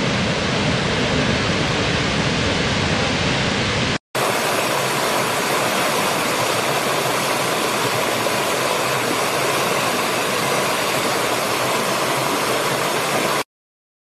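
Steady, heavy rush of a large waterfall; after a short break about four seconds in, the lighter, hissing rush of a rocky stream tumbling over stones, which cuts off abruptly shortly before the end.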